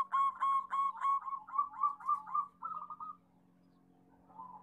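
Zebra dove (perkutut) singing its staccato cooing song: a run of quick, evenly spaced coos, about five a second, that speeds into a faster rolling trill and stops about three seconds in. A faint steady low hum lies underneath.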